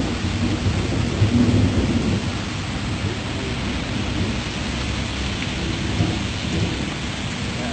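Heavy rain pouring steadily, with a constant low rumble underneath.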